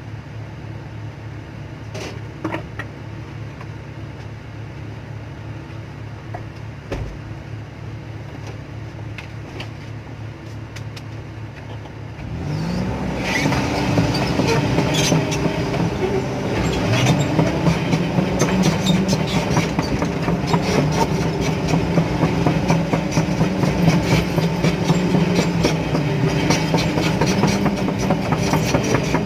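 Excavator diesel engine running steadily at low revs with occasional clicks, then revving up about twelve seconds in and staying loud, with dense metallic clanking.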